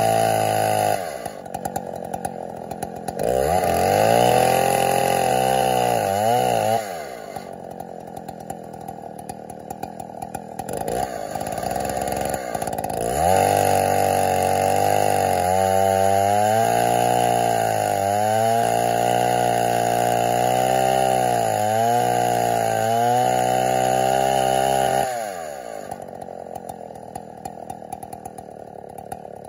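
Chainsaw mounted in an Alaskan mill, revved up and down repeatedly with stretches of lower running in between. Near the end it settles to a steady idle.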